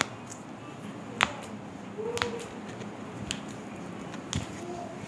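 Joints cracking as a chiropractor manipulates a patient's wrist and arm: about five sharp separate clicks roughly a second apart, the loudest two at the start and about a second in.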